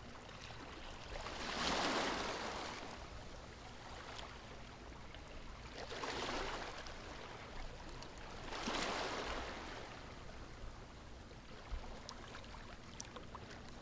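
Sea waves washing gently on a shore, three soft swells that rise and fade.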